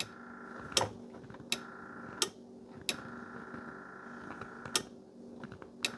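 Solid-state electric fuel pump of a 1972 VW Super Beetle switching on with a click, then running with a faint steady hum and a sharp tick every second or so. It runs but delivers no fuel, which the owner takes for a failed pump.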